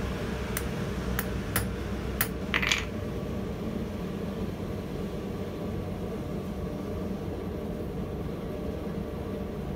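Hand hammer striking the top die of a guillotine die set to neck a hot mild steel rod: about five sharp metallic blows in the first three seconds, the last ones loudest, then only a steady low hum.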